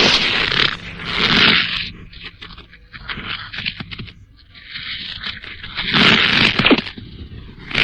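Showa-era tokusatsu sound effects: harsh, crackling noise that comes in loud bursts. The loudest bursts fall in the first two seconds and again about six seconds in, with quieter scraping crackle between them.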